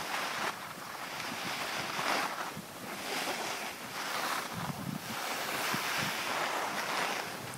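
Skis hissing and scraping over groomed snow, swelling and fading with each turn, with wind rushing over the microphone.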